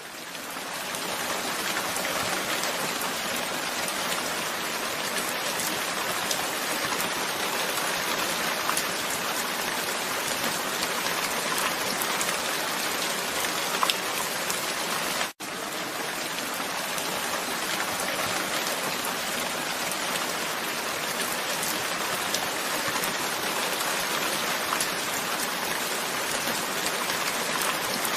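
Steady rain falling, a dense even hiss with scattered sharper drop ticks. It breaks off for an instant about halfway through, then carries on.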